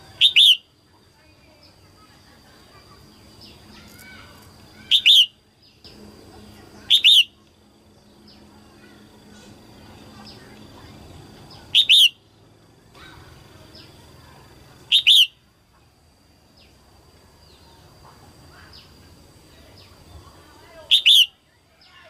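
Female red-whiskered bulbul calling: six short, loud bursts of quick high notes, spaced a few seconds apart. It is the female call used to stir male bulbuls into singing.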